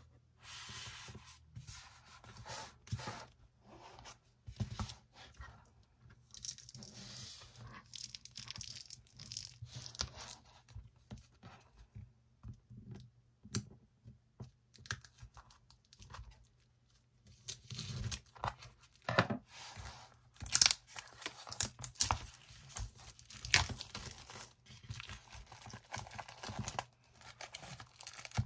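Hands handling and unwrapping a shrink-wrapped hardcover album: plastic film crinkling and tearing, with light taps and slides of card and cardboard on a tabletop. It comes in irregular rustles and clicks, quieter around the middle and busier and louder over the last third.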